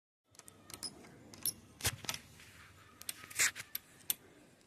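Metal tools and parts being handled during an electric water-heater repair, giving irregular sharp clicks and clinks, the loudest a little under two seconds in and again about three and a half seconds in.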